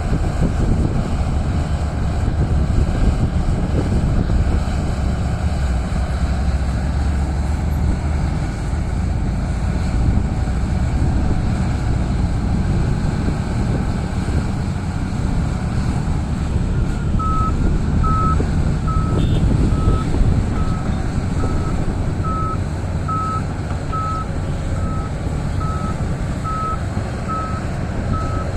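Big diesel engines of heavy mining machinery, a Komatsu D375A crawler dozer ripping rock and a PC1250 excavator, running steadily under load. About two-thirds of the way through, a backup alarm starts beeping evenly, about one and a half beeps a second.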